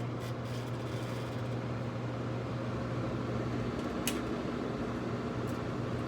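Haier 5,200 BTU window air conditioner running: a steady hum under the blower's rushing air, with a sharp click about four seconds in. It makes a loud noise that the owner suspects is a leaf stuck inside the unit.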